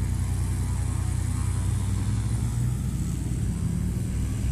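Glider tow plane's piston engine running at low power, a steady low drone whose lowest tones shift near the end.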